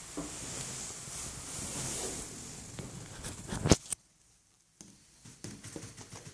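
Rustling handling noise with scattered small clicks, then one sharp click about four seconds in, followed by a brief near-silent gap.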